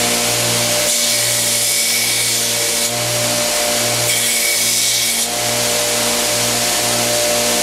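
Homemade 2x72 belt grinder running steadily with a pulsing hum while its abrasive belt grinds a knife handle being profiled. The grinding hiss swells about a second in and again about four seconds in as the handle is pressed to the belt.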